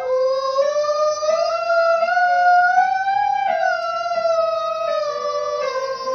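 A high singing voice holding one long vowel in a vocal exercise, the pitch sliding slowly upward and then easing back down near the end.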